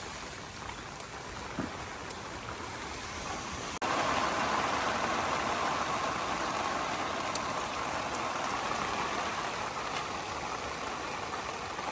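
Heavy rain falling and splashing as a steady hiss. About four seconds in it cuts off for an instant and comes back louder.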